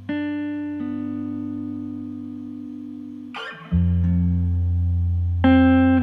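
Slow, sparse guitar music: single plucked notes ring out and sustain, a new one every second or two. A deep low note comes in a little past halfway, and the loudest note sounds near the end.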